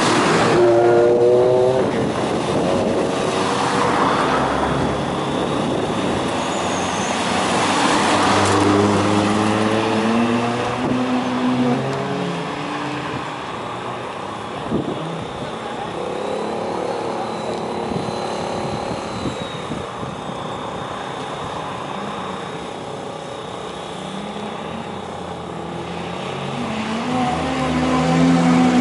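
Classic cars' engines accelerating out of the pit lane and away down the track, revving up and dropping in pitch at each gear change, several times over.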